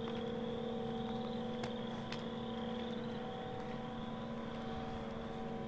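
Steady machine hum with a constant pitch, like an engine or generator running at idle, with a faint wavering whine above it and a couple of light clicks.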